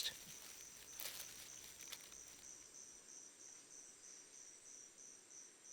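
Faint insect chirping, a high, cricket-like note pulsing evenly about four times a second, with a couple of faint ticks about one and two seconds in.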